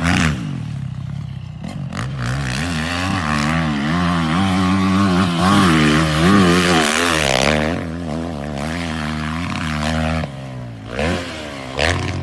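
Dirt bike engine revving up and down as the rider works the throttle through a sandy motocross track, with the revs dropping off briefly shortly before the end.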